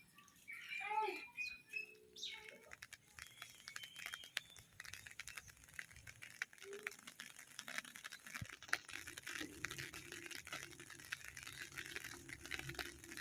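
Rain pattering: a dense, faint scatter of small drop ticks. A short squawking call sounds in the first couple of seconds.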